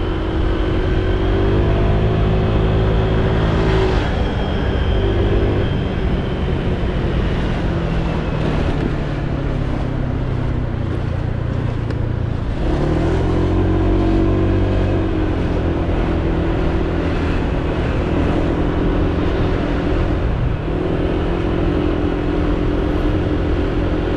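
Honda PCX 125 scooter's single-cylinder four-stroke engine running under way. It eases off and slows through the first half, then picks up again about halfway through.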